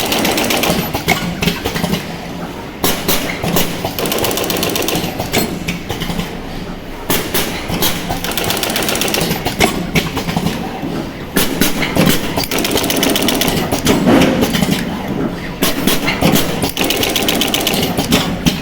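Automatic ribbon-wire cut, strip, crimp and soldering machine running: sharp clacks and a fast buzzing rattle that recur in groups every few seconds as it works through its cycles.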